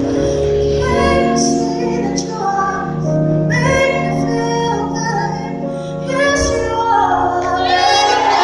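Live band music with a high voice singing long, gliding notes over the instruments.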